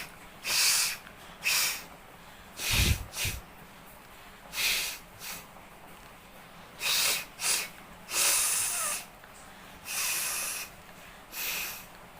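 A person blowing their nose hard, over and over: about ten short, hissing blasts of air out through the nose, each under a second and a second or so apart. The one about three seconds in comes with a low thump.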